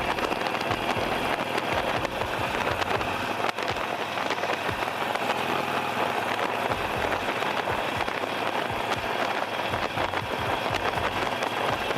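Steady wind rush buffeting the camera microphone on a moving motorcycle, an even noise with a fluttering low end.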